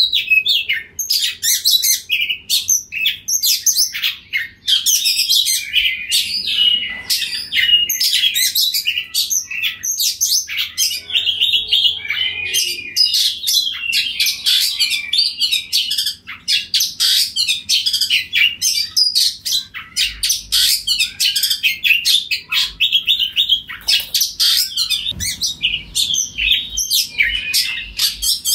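Oriental magpie-robin singing loudly and without pause: a fast, unbroken run of short, sharp whistles and chirps.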